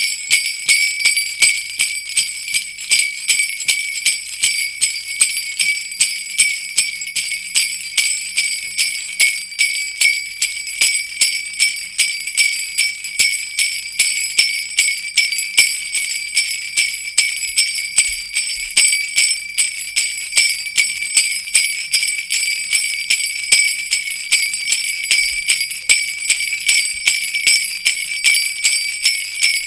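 Jingle bells shaken in a steady rhythm, about two shakes a second, jingling without a break.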